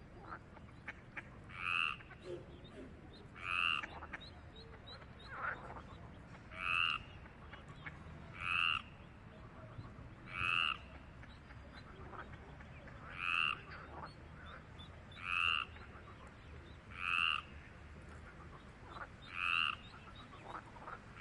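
A frog calling: a short croak repeated about every two seconds, ten or so times.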